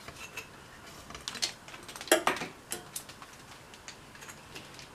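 Irregular small clicks and knocks of test gear being handled on a workbench, the loudest a little over two seconds in.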